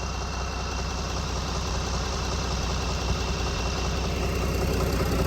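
A vehicle engine idling steadily, a low continuous rumble that grows slightly louder toward the end.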